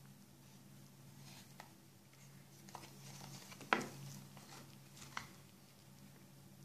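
Faint handling of a Sony UX-S 90 cassette in its clear plastic case: light plastic clicks and taps as it is turned over in the hands, the sharpest click a little past the middle and another about a second and a half later.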